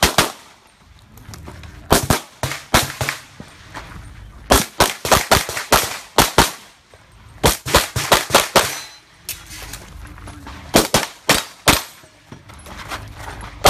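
Handgun firing fast strings of shots, from pairs up to runs of half a dozen or more, with gaps of a second or two between strings. There are more than twenty sharp cracks in all.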